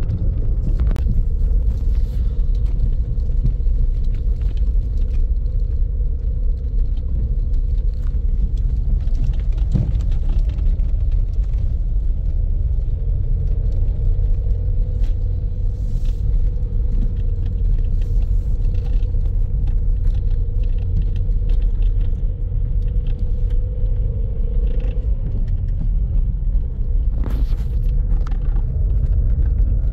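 Motor vehicle driving over a rough road: a steady low rumble with a faint even hum and scattered short knocks and rattles.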